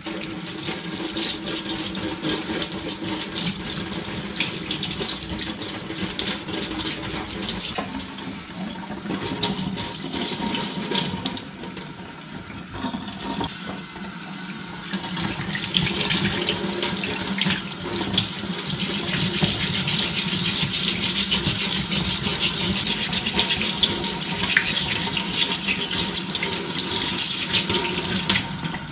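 Kitchen tap running into a stainless steel sink while a plastic scrubbing brush scrubs boiled snapper jaw bones under the stream. The running water gets louder about halfway through.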